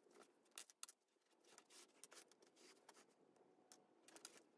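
Near silence, with a few faint, brief rustles and clicks from a fabric pouch and its cord drawstrings being handled, pulled and tied closed.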